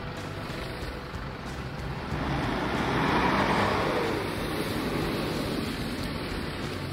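Mahindra Thar's engine pulling hard as the vehicle climbs a steep dirt mound, heard from inside the cabin. It swells about two seconds in and eases off again after about four and a half seconds.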